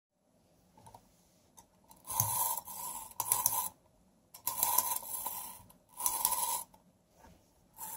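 Clockwork spring of a vintage wind-up walking corn toy being wound by its key: four turns, each a short whirring rasp of about half a second with pauses between, and the next turn starting at the end.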